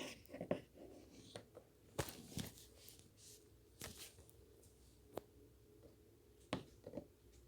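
Slime mixed with soothing gel being handled, giving about ten scattered soft sticky clicks and pops.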